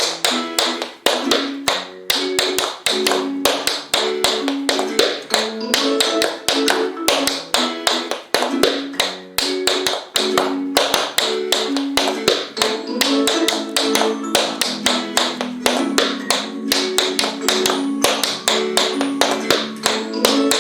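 Metal taps on tap shoes striking the floor in quick rhythmic steps: brushes, ball changes, hops and toe taps. Upbeat backing music with a plucked-string sound plays under the taps.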